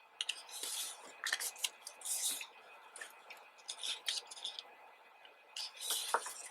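Pages of a glossy photo book being turned and handled: a series of short papery rustles and slides, with small clicks and taps between them.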